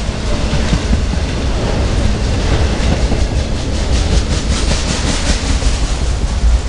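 Freight train of autorack cars passing close by: a steady rumble of steel wheels on rail, with a run of rhythmic clickety-clack about four seconds in as the wheels cross rail joints.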